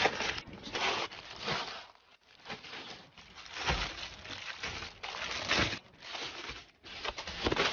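Silicone pop-it fidget toy bubbles being pushed through one after another: an irregular run of quick pops and crinkly clicks, several a second, with short pauses between runs.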